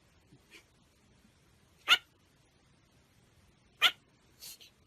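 A pet animal making short, sharp sounds, the two loudest about two seconds apart, with fainter ones between.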